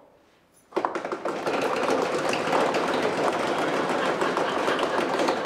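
A drum roll: rapid, dense drumming, as of many hands patting on tables, starting suddenly just under a second in and keeping up steadily.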